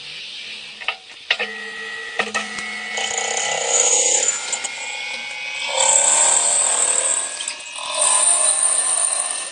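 CNC lathe running a cut: a steady whine of several tones, with sharp clicks in the first couple of seconds and louder spells of high hissing as the tool works, the loudest from about six seconds in.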